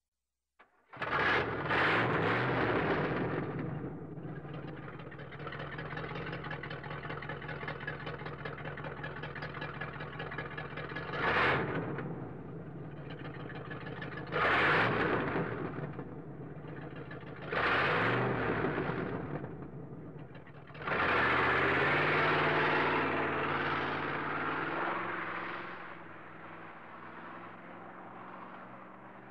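A car engine starts about a second in and idles, blipped up in revs three times in the middle. Near the end it is held at higher revs for a few seconds, then settles back to a quieter idle.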